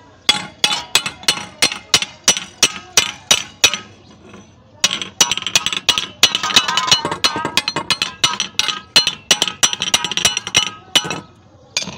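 A hammer strikes a clogged galvanized iron pipe in metallic clinking blows with a ringing note, about three a second. After a short pause it goes on in a faster, denser run, knocking loose the sludge inside the pipe.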